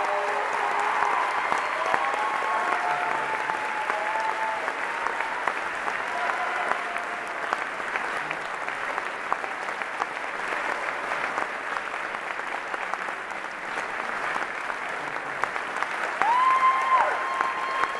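A theatre audience and the cast applauding steadily through a curtain call, with voices calling out over the clapping near the start and again near the end.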